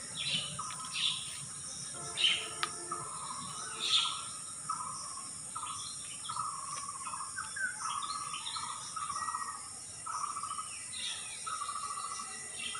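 Birds calling in the trees: a short warbling phrase repeated about once a second, with sharper higher chirps over it, against a steady high hiss.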